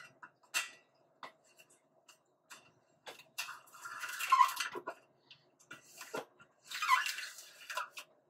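Hands pressing and rubbing a self-adhesive LED strip down onto a light-fixture reflector. Scattered light clicks and taps, with two longer rubbing passes, one about three and a half seconds in and one about seven seconds in.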